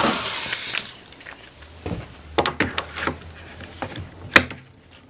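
A locking face clamp being handled and snapped shut on a pocket-hole jig: a short rustling scrape, then several small metal clicks and one sharp click about four and a half seconds in as the clamp locks down.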